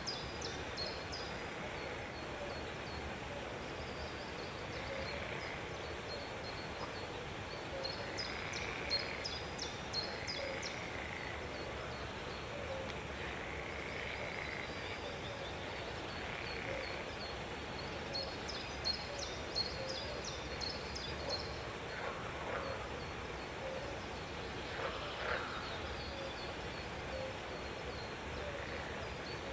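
Captive exotic birds calling: clusters of short, high chirps with a lower arching call every second or two, over a steady background hiss.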